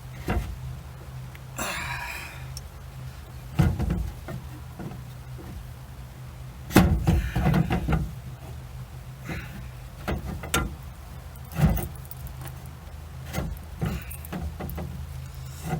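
Irregular metallic clinks and knocks from handling a chainsaw crankcase and case-splitter tool as the case halves are worked apart, with a scraping rustle about two seconds in. A steady low hum runs underneath.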